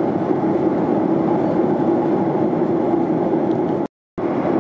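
Steady cabin noise of a Boeing 737-800 airliner in flight: a constant rushing drone of airflow and engines with a low hum. It cuts out for a moment just before four seconds in, then resumes unchanged.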